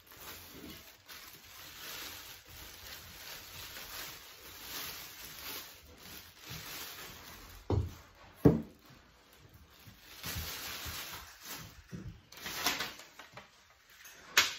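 Pieces of a collapsible metal table frame being handled during assembly: an uneven rustling, rubbing noise, two dull knocks a little over halfway through, and a few more knocks near the end.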